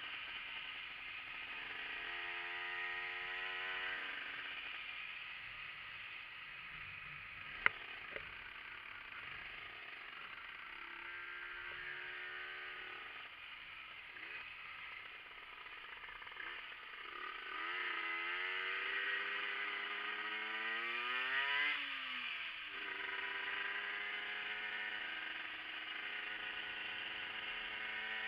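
Yamaha TZR two-stroke motorcycle engine under way, its pitch rising with the throttle and falling as it eases off and shifts, over wind noise on the camera microphone. The longest, highest climb comes about two-thirds of the way in and ends in a sharp drop. There is one sharp click a little over a quarter of the way in.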